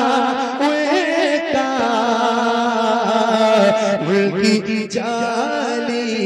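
Male voice singing a naat: a drawn-out, ornamented melodic line with wavering, sliding pitch over a steady low drone.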